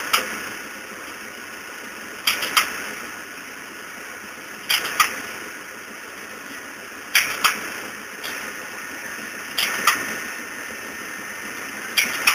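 Brick-making machinery running in a steady cycle: a sharp double clack about every two and a half seconds over a steady mechanical hum.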